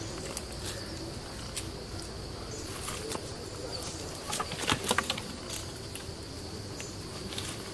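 Steady high-pitched insect drone, with scattered rustles and a quick cluster of sharp snaps about four and a half seconds in.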